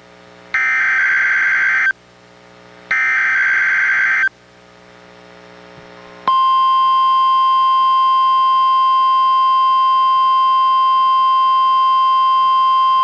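NOAA Weather Radio SAME header: two buzzing bursts of digital data tones, each about a second and a half long, about a second apart, from a Reecom R-1630 weather radio. After a pause of about two seconds, the steady 1050 Hz warning alarm tone comes on about six seconds in and holds. Together they make up the Required Weekly Test of the radio's warning alarm.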